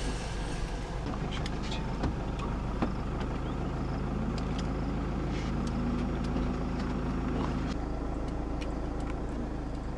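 A vehicle's engine running steadily, with scattered light clicks and knocks. A hum rises in about four seconds in and drops out just before eight seconds.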